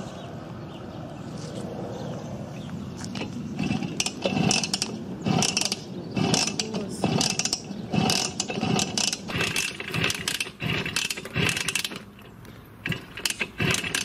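Kickstarter of a small motorcycle being kicked over again and again in quick succession, each stroke a sharp mechanical clatter of the kick-start gears, with the engine not catching.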